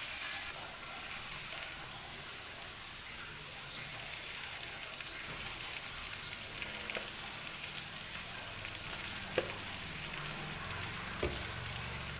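Sauce frying in a pan with a steady sizzle, broken by a few short sharp clicks.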